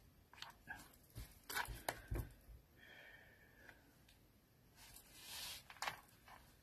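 Faint handling sounds of paper and card on a cutting mat: a few light taps and knocks in the first couple of seconds, then a soft rubbing of a cloth over the glued paper about five seconds in.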